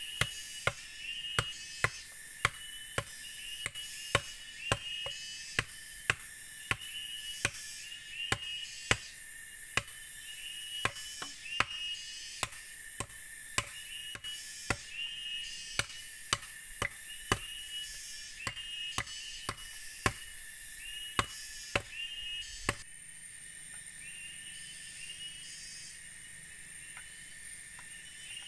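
A tool chopping into a short section of green bamboo, a steady run of sharp strokes about twice a second that stops near the end. A steady high-pitched drone runs behind it.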